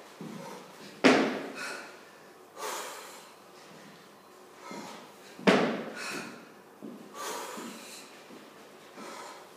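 A woman's forceful breathing while doing kettlebell jerks: two loud, sharp exhalations, one about a second in and one about five and a half seconds in, with quieter breaths between them.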